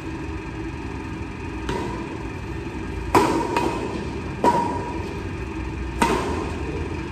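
Badminton rackets striking a shuttlecock in a doubles rally: five sharp hits about a second apart, two of them in quick succession, each ringing briefly in a large hall.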